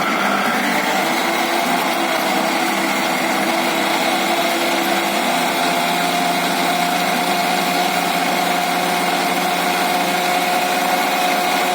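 Electric mixer grinder running steadily with a steady whine, blending a wet tomato, onion and curd chutney into a paste.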